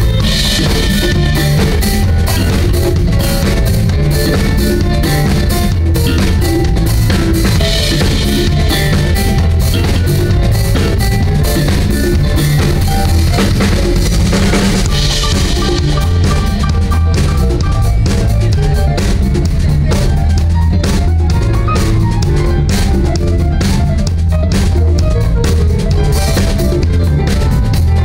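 Live band playing loudly, led by a drum kit with bass drum and snare hits over a steady electric bass line.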